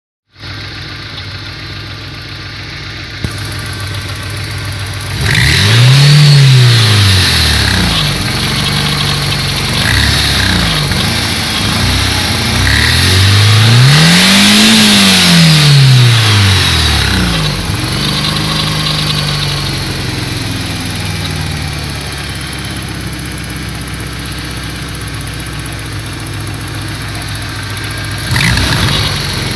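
Warmed-up car engine idling with a rocker arm knocking in the valve train, revved up and back down to idle twice, about five seconds in and again around the middle.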